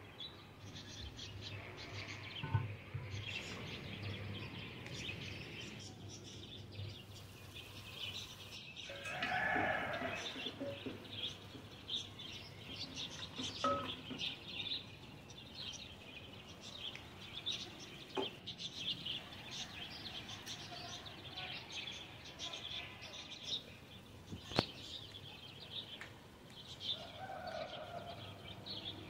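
Birds chirping in the background, with a few sharp knocks, such as a wooden spoon striking an aluminium cooking pot, about 14, 18 and 25 seconds in.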